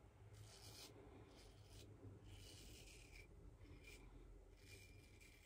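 Gillette Old Type open-comb safety razor cutting through lathered stubble: several short, faint, scratchy strokes.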